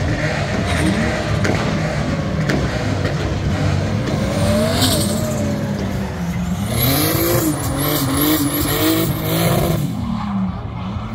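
Drift car engine revving up and down as the car slides, with tyres squealing about halfway through and again for several seconds near the end.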